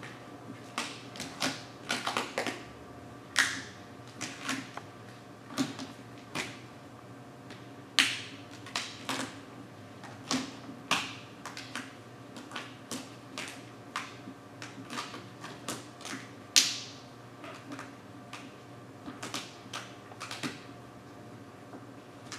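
Vinyl wrap film crackling and snapping in irregular sharp clicks as it is stretched over a curve and pressed down with a felt-edged hard card, a few strokes drawn out into short rasps.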